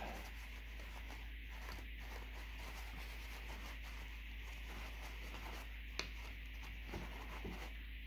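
Faint rubbing of a paper towel wiping grease and dirt off the plastic gears and housing of a car's blend door actuator, with a single sharp click about six seconds in.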